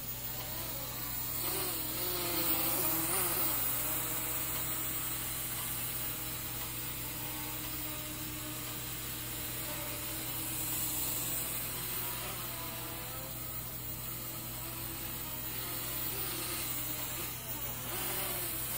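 Syma X11 mini quadcopter's four small electric motors and geared propellers whining in flight, the pitch wavering up and down as it is flown.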